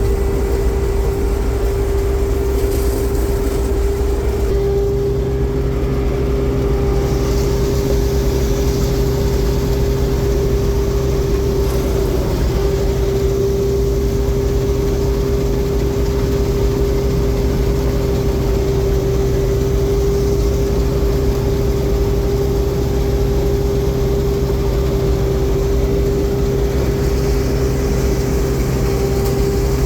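Combine harvester running steadily under work, a continuous engine drone with a steady high whine over it; a lower hum joins in about four and a half seconds in.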